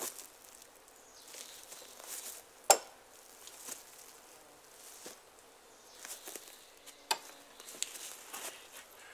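An axe shaving branch stubs off a wooden ridge pole: short scraping strokes, with a few sharp knocks of the blade on the wood, the loudest about three seconds in.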